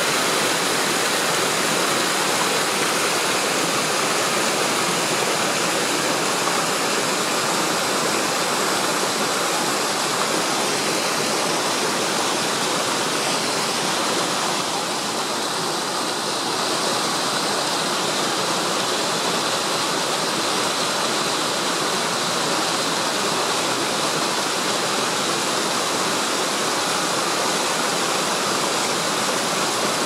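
Mountain stream rushing and splashing over boulders in small cascades, a steady sound of running water that dips slightly in level about halfway through.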